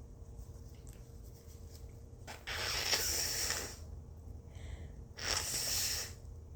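A person breathing: two long, noisy breaths, the first about two and a half seconds in and the second about five seconds in, over a low steady hum.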